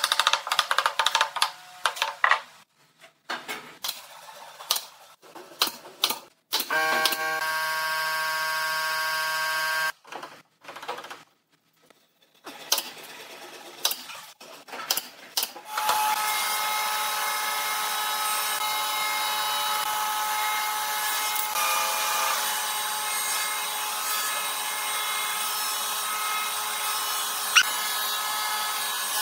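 Workshop work sounds: scraping strokes of hand sanding on pine at the start, then a small power tool, a drill, running with a steady whir for about three seconds. From about halfway through, a steady machine hum runs on.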